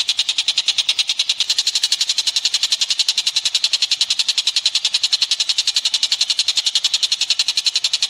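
A high-pitched animal trill of evenly spaced chirps, about ten a second, going on without a break: a masteran recording played to songbirds so they learn the call.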